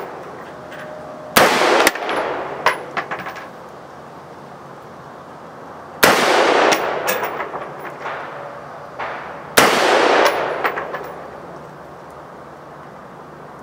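Three single shots from a Colt AR-15 A2 rifle firing 5.56 NATO, each trailing off in an echo with a few lighter clicks and clinks after it. The shots come about four and a half seconds apart, then three and a half.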